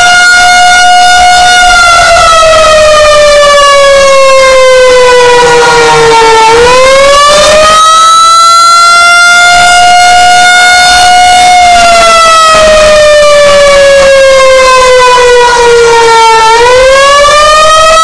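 Pole-mounted outdoor warning siren (civil defense siren) sounding a very loud test signal, its head rotating. The held tone slowly sinks in pitch for several seconds, then swings quickly back up, about 6 and 16 seconds in.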